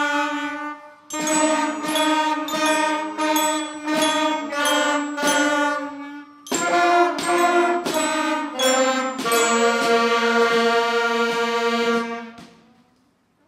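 School band of saxophones, trumpet, flute and clarinet playing held chords over steady snare drum strokes. The music breaks off briefly about one second and again about six and a half seconds in, and the last chord dies away near the end.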